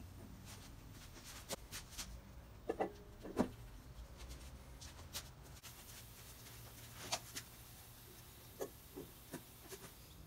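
Scattered faint clicks and light taps over a quiet room background.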